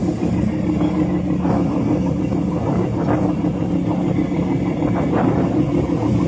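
Fishing boat's engine running steadily under way, a continuous even drone with no change in speed.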